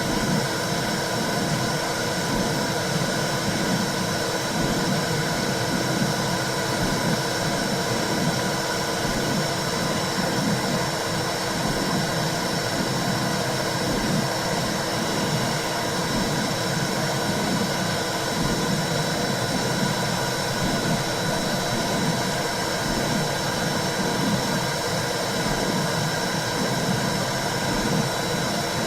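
Womb-sound white noise for calming babies: a steady rushing hiss with a thin high tone running through it and a restless low whoosh underneath.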